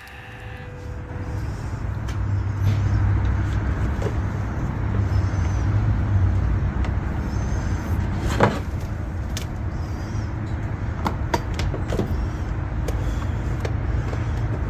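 Steady low rumble with scattered short clicks and knocks, the loudest about eight and a half seconds in.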